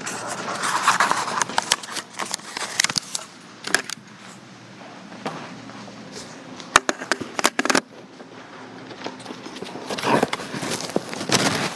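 People settling in wooden church pews: rustling of clothes and paper, with scattered sharp knocks and clicks against the wood.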